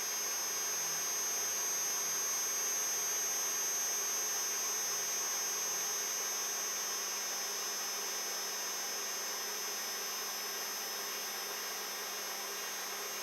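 Protomaker 3D printer's Z-axis stepper motors running steadily, turning the threaded rods to lower the gantry toward the print bed: a continuous whine and hum.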